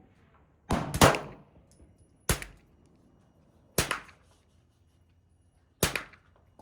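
Five gunshots at uneven spacing, two close together about a second in and the rest a second or two apart, each a sharp crack with a short fading tail.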